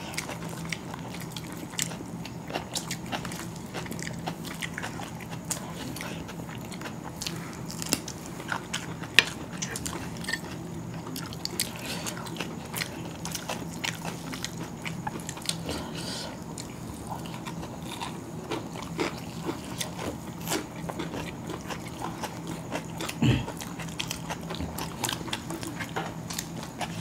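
Two people eating chicken biryani with their hands: chewing and biting mouth sounds with many small sharp clicks and taps of fingers and rice on steel plates, over a faint steady low hum. One louder sound comes near the end.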